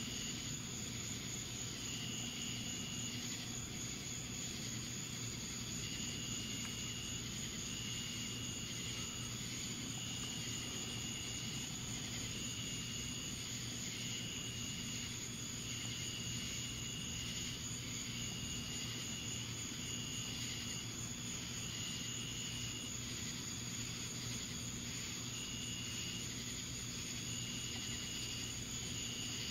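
Night insects calling in high, even trills about a second long, stopping and starting, over a steady hiss and low hum.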